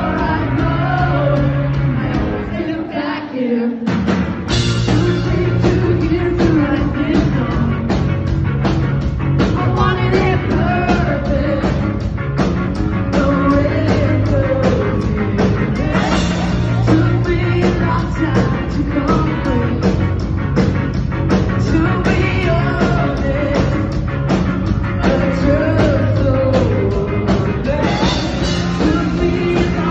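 Live ska-punk band playing loud, with a woman singing lead over electric guitars, bass and drums. After a short break in the low end, the full band comes back in about four seconds in.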